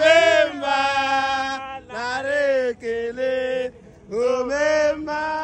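A man singing loudly in long, held phrases with sliding pitch, four phrases broken by short pauses.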